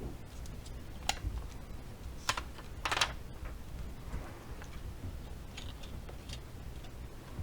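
Scattered small clicks and taps of repair tools and small parts on an iPhone 7 display assembly, with sharper clicks about one, two and three seconds in, over a low steady hum.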